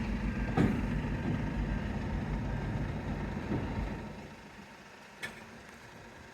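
A vehicle engine running steadily at low revs, fading away about four seconds in, with a light click just after the start and another about five seconds in.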